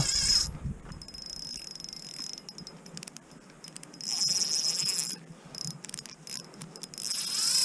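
Spinning reel's drag buzzing as a hooked trout pulls line off it, the drag set very loose: a short burst at the start and a second, louder run of about a second around four seconds in, followed by scattered clicks from the reel.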